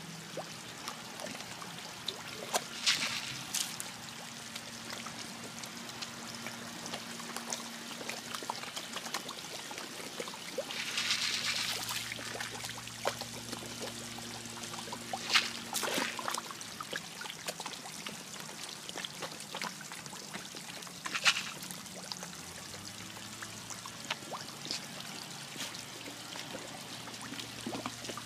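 Steady trickle of running pond water, with a few sharp splashes and slurps as fish rise to take floating food pellets at the surface.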